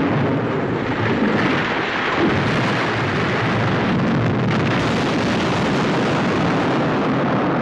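Explosions from a bombing run, heard as a loud, continuous rumble in which no single blast stands out. This is the dubbed sound track of a wartime newsreel.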